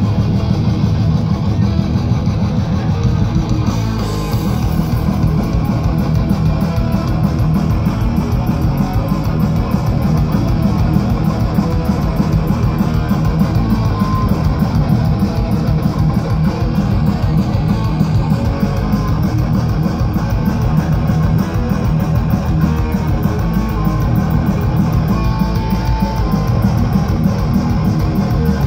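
Thrash metal band playing loud and live through a PA: distorted electric guitars, bass guitar and fast drumming, picked up from within the crowd.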